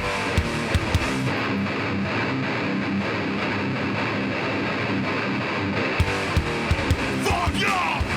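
Live heavy metal band: a distorted electric guitar riff rings on its own, then drum hits come in about six seconds in and the full band builds up near the end.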